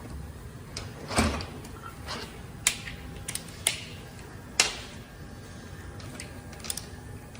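Sharp metallic clicks and knocks of truck brake caliper parts being handled as the tappet is fitted into the caliper, four or five separate strikes, the loudest a little over a second in.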